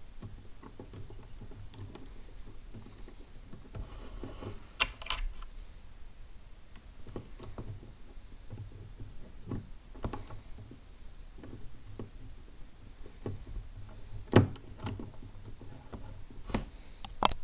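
Lego Technic plastic parts clicking and rattling as they are handled and pressed together, in scattered irregular clicks, with one louder snap late on.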